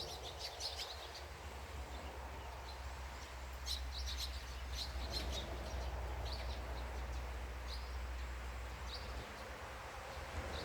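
Small birds chirping in short, quick bursts, most busily near the start and again about four seconds in, with scattered calls after that, over a steady low rumble.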